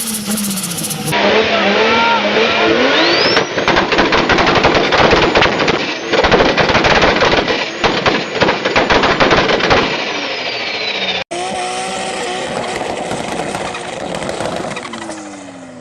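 Turbocharged straight-six car engine revving, its turbo whistle rising, then a long run of rapid fluttering chatter as the turbo surges off throttle, before the whine falls away. About eleven seconds in, another clip cuts in: a second turbo engine revving, its pitch falling near the end.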